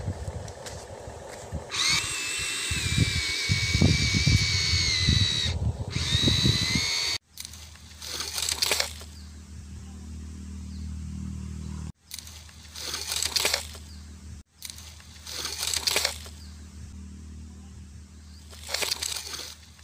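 Huina RC excavator's electric motors whining, the pitch sliding up and down as it moves, with gravel and sand crunching under it. About seven seconds in this gives way to a steady low hum, with a brief swell of hiss every few seconds.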